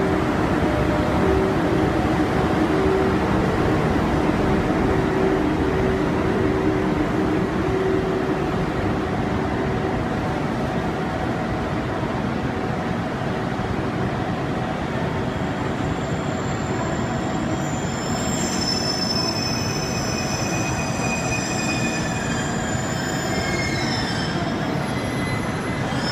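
Freight train hauled by an EF81 electric locomotive, running past with a loud steady rumble of wheels on rails and a low hum that fades after the first ten seconds. In the last third, high-pitched wheel squeals come in, several at once.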